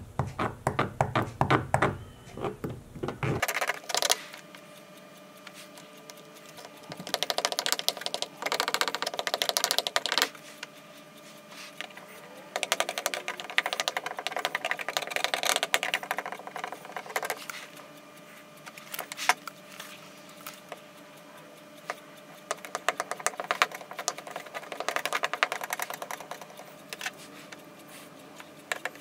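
Plastic welding iron's hot tip working melted polyethylene rod into the repair on a polyethylene tank. It makes several bursts of rapid clicking and crackling a few seconds long, with quieter gaps between.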